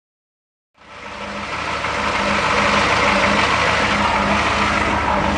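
A motor vehicle's engine running steadily at idle, fading in from silence about a second in.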